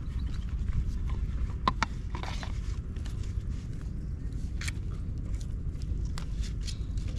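Steady low rumble with scattered light clicks and rustles: bare feet stepping in wet mud and a plastic bottle being handled.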